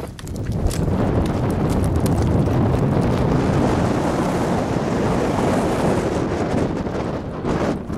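Wind gusting over the microphone: a steady rushing roar that builds in the first second and eases near the end.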